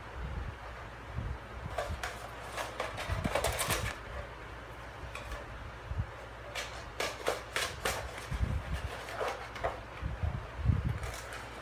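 Toyger cat clawing, biting and kicking a cardboard tube: bursts of scratchy cardboard crackling a couple of seconds in and again past the middle, with a few dull thumps, the loudest near the end.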